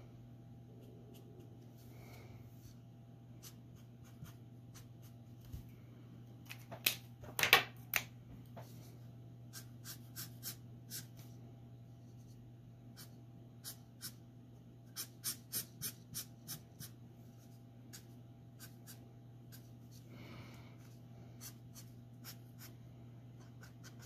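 Copic alcohol marker dabbing and stroking on drawing paper: scattered runs of small ticks from the marker tip, with a cluster of louder clicks about seven to eight seconds in. A steady low hum lies underneath.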